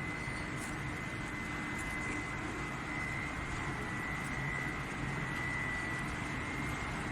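Steady running noise of coal-fired steam boiler plant machinery: an even roar with a constant high whine over it.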